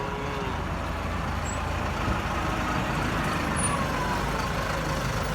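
Diesel engine of heavy construction machinery running steadily.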